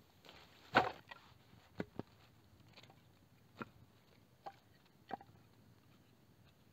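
Objects being handled: a loud knock about a second in, then five lighter knocks and clicks spread over the next four seconds.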